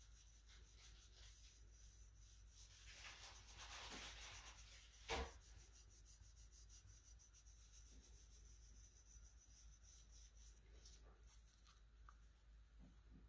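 Faint rubbing and scratching of a cotton ball dabbing etching acid onto a steel axe head, with one sharp tap about five seconds in.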